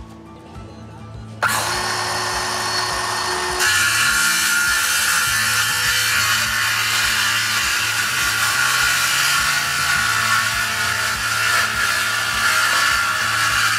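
Ryobi circular saw starting up about a second and a half in, then cutting through a pine board from about four seconds in, running steadily under load.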